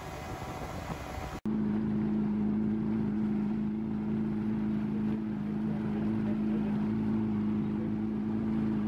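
Motorboat running fast, with rushing wind and water. About a second and a half in, it cuts to the boat's engine running at an even, steady hum while trolling, with water washing in the wake.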